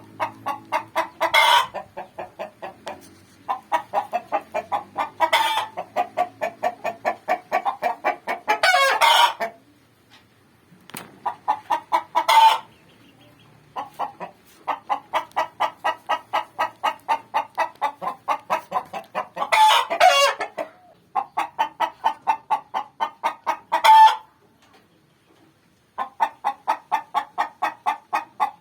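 A hen's laying cackle: runs of rapid clucks, about five a second, each run ending in a louder, drawn-out squawk, repeated over and over. It is the call a hen gives around laying, taken here as a sign she is about to lay.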